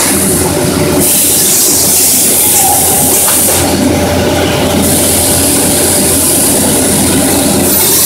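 Sun Glory circle grinding and washing machine running: a steady mechanical din with a constant low electrical hum and a strong, even hiss.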